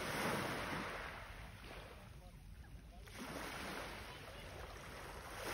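Small waves washing up onto a pebble beach, two soft swells of surf about three seconds apart.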